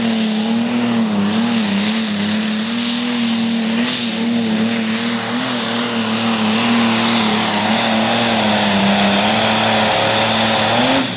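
Pro stock pulling tractor's turbocharged diesel engine running flat out under heavy load as it drags the weight sled, a steady deep drone with a high whine over it. It drops off sharply at the very end as the pull stops.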